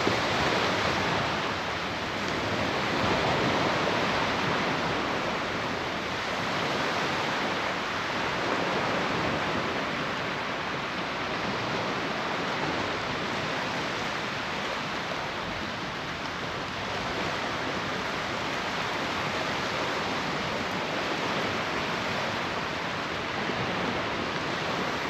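Surf washing onto the beach, a steady rushing noise with slow gentle swells in loudness.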